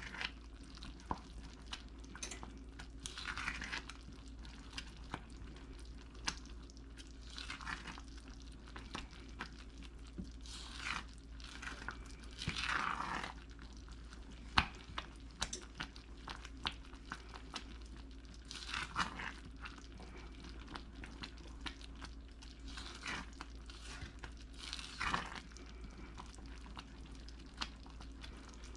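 A spoon stirring a boiling fudge mixture of sugar, butter and evaporated milk in a heavy saucepan: irregular scraping swishes every second or two, with small pops from the bubbling mixture.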